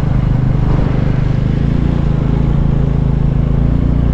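Motorcycle engine running steadily under way, with road and wind noise. Its pitch rises slightly about two seconds in.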